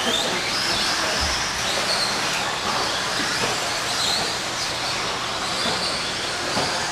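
Several electric radio-controlled stock trucks with 17.5-turn brushless motors racing, their motors whining up and down in pitch as they accelerate and brake, over a steady rush of tyre and track noise.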